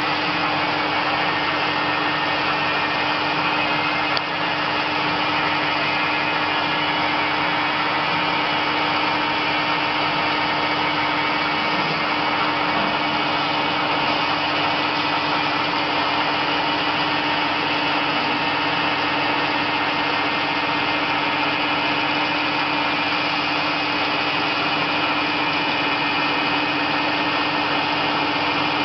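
320 × 750 CNC lathe turning a metal part with coolant flooding the cut: the machine runs with a steady hum under a constant hiss from the cutting and the coolant spray.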